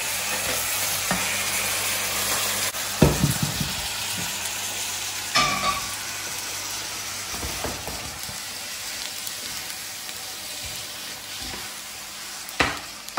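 Stir-fried vegetables and crispy seitan sizzling in sauce in a hot pan, a steady hiss that slowly dies down, with a few knocks of a utensil against the pan.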